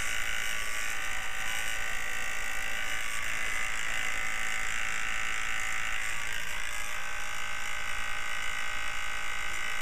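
Small electric fan running steadily, a whirring buzz with a few steady tones over an even hiss.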